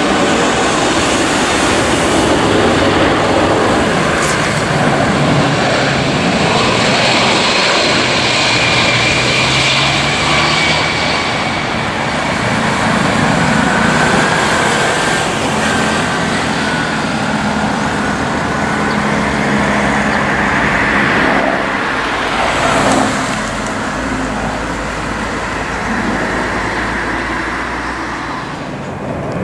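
Jet noise from the Boeing 747-400's four Pratt & Whitney PW4000 engines as it lands: a loud, steady rush with a thin whine and slowly shifting low tones.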